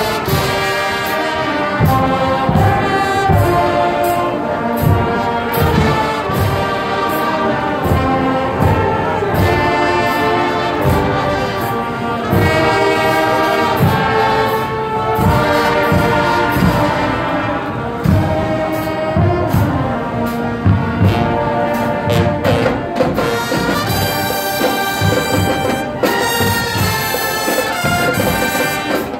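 Marching band playing: a brass section carries the tune over a steady drum beat.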